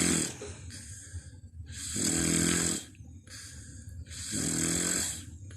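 A man snoring in deep, regular breaths, one rasping snore about every two and a half seconds, with a fainter breathy exhale between snores.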